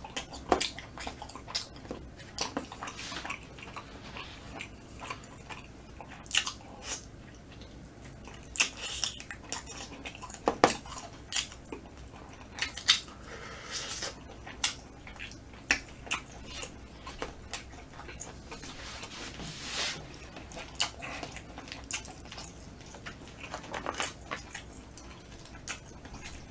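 Close-miked chewing of smoked chicken: wet mouth clicks and lip smacks at an irregular pace.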